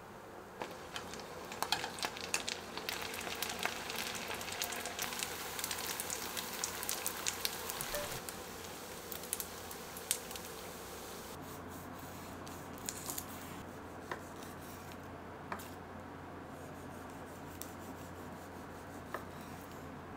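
Crispy rice patties deep-frying in hot oil: a crackling sizzle full of sharp pops, loudest over the first several seconds, then dying down to a quieter low hum with a few scattered clicks.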